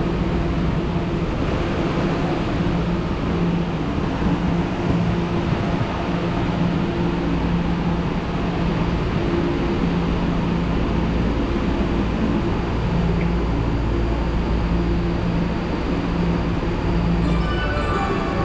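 Tokyo Metro Marunouchi Line train standing at a station platform, with a steady hum from the train's equipment and platform ambience. Near the end a short electronic departure melody starts, the signal that the doors are about to close.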